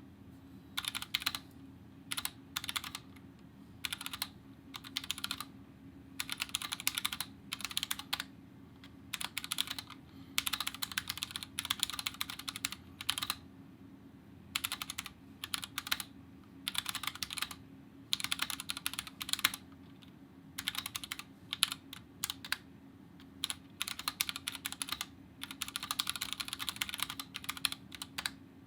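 Typing on a Kemove DK61 Snowfox 60% mechanical keyboard, stock, with Gateron Red linear switches: rapid keystroke clatter in runs of a second or two, broken by short pauses.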